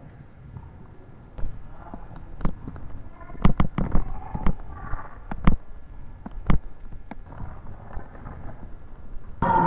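Irregular thuds of feet running and landing on a gym floor, with faint voices in the hall; louder noise comes in near the end.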